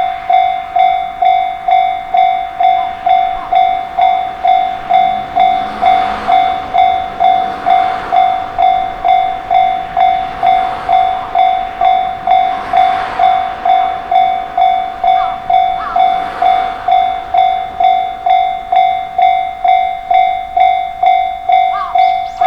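Japanese level-crossing alarm bell ringing its steady "kan-kan" at about one and a half to two strokes a second. A train passes over the crossing, its wheel and running noise swelling and fading several times between about five and seventeen seconds in.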